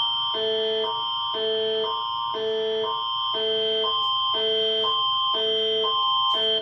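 Canadian emergency alert attention signal: a steady high tone held over two chords that alternate every half second, a higher pair and a lower pair, in a two-note warble that repeats about once a second. It cuts off abruptly near the end.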